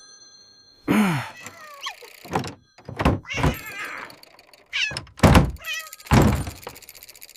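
Cartoon slapstick sound effects: about four heavy thuds and bangs, the loudest about five seconds in, the first sliding down in pitch, with short wavering cries between them.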